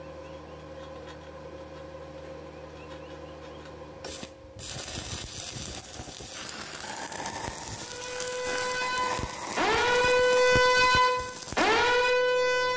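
Stick welding arc on thin square steel tube, crackling and hissing from about four and a half seconds in after a few seconds of steady hum. Near the end it is overtaken by a loud whistling tone that twice swoops sharply up and holds.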